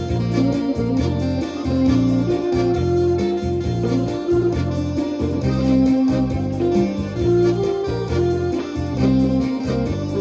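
Live amplified ensemble music in a Thai classical style, led by an electronic keyboard with an organ-like tone over a steadily pulsing bass line that changes note about every half second.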